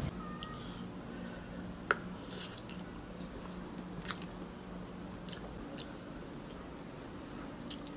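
A man eating tandoori fish by hand: soft chewing and mouth sounds with scattered small clicks and smacks, the sharpest about two seconds in, over a steady low hum.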